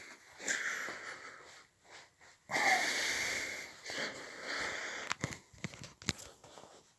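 Breathing close to the microphone: a short breath in, then a longer, louder breath out about two and a half seconds in, followed by a few light clicks.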